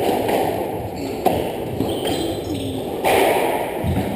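Squash rally: the hard rubber ball is struck by racquets and rebounds off the walls, with two sharp knocks, about a second in and about three seconds in, over the echoing hall's steady background noise.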